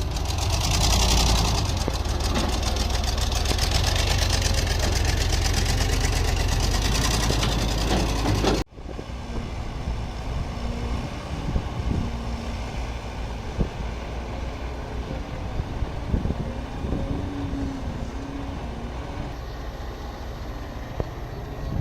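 Excavator's diesel engine running loudly and steadily; about eight and a half seconds in it cuts off abruptly and a quieter engine sound follows, with scattered sharp clanks.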